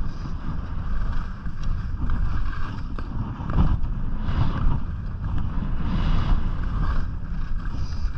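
Wind buffeting a GoPro's microphone during a fast ski descent, over the hiss of skis carving on groomed snow. The hiss swells and fades every second or two as the skier turns.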